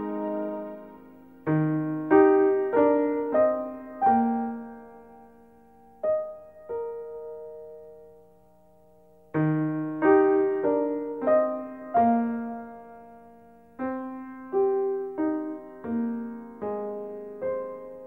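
Gentle piano music: short phrases of single struck notes that ring and fade away, with a long lull around the middle before the next phrase begins.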